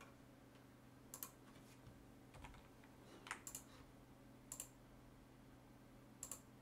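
Faint, scattered computer keyboard keystrokes, a handful of short clicks, some in quick pairs, over near silence.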